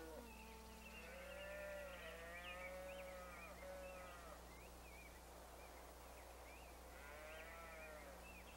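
Cattle lowing: several long, drawn-out moos from about a second in, then another near the end, faint over a steady low hum.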